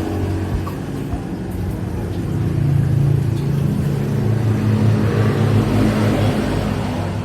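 An engine running steadily, growing louder for a few seconds in the middle before easing back.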